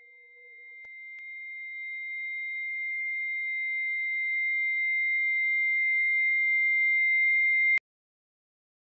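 A steady high-pitched electronic tone, a pure ringing sound-design note, swells steadily louder and then cuts off suddenly into dead silence near the end. A faint lower tone fades out about a second in.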